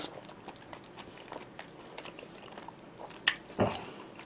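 Close-miked chewing with a mouthful of soup tteokbokki: soft, wet mouth clicks, with a sharper click a little after three seconds in and a louder one just after.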